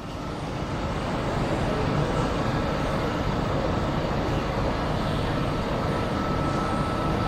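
A Sydney Trains V-set double-deck intercity electric train at the platform, giving off a steady mechanical hum and hiss with a faint steady high-pitched tone over it.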